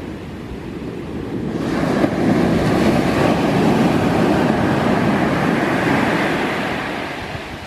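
Sea waves breaking on the shore: a surge of surf that swells about a second and a half in, holds loud for several seconds, then fades near the end.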